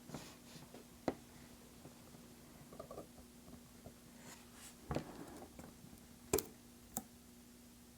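Faint clicks and light taps of small repair tools and parts being handled on an opened iPhone, a few scattered strikes with the sharpest about six seconds in, over a faint steady hum.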